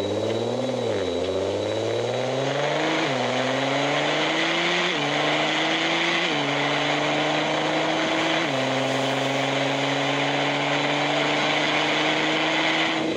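Simulated car engine sound from a phone speedometer app accelerating through the gears. The engine note climbs and drops back at each of about five gear changes, which come further apart as the speed builds, then holds a nearly steady high note.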